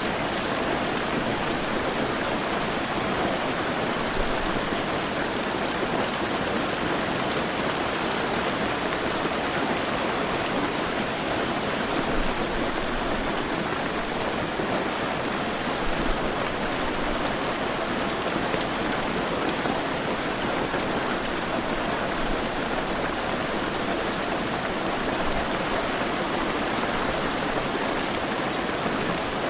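Heavy rain falling steadily, a dense even hiss of drops striking a surface, with no let-up or change.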